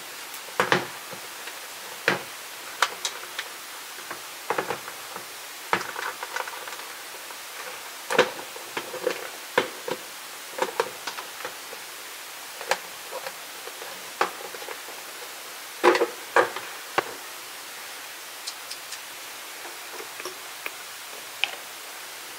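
Irregular clatters, clicks and knocks of kitchen containers and utensils being handled while food is prepared for cooking, over a steady hiss.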